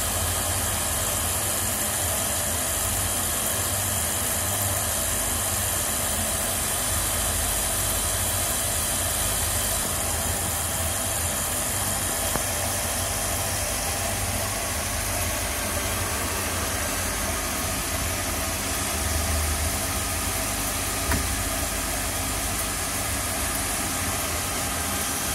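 Custom CNC micro-drill sharpening machine running, its grinding wheels and spindle motors making a steady hum with a thin high whine.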